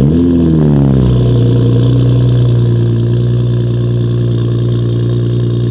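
Mk5 Toyota Supra starting up through a full-titanium single-exit exhaust: the engine catches with a short rev flare that settles within about a second into a steady, loud idle.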